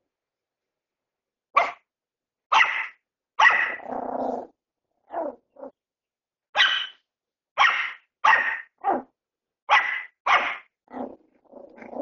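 Bichon frise puppy barking in short, sharp barks, about a dozen at uneven intervals, with a low rough growl after the third bark and again near the end.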